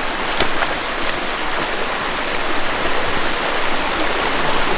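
Mountain creek running steadily over rocks, a continuous rush of water, with two brief knocks about half a second and a second in.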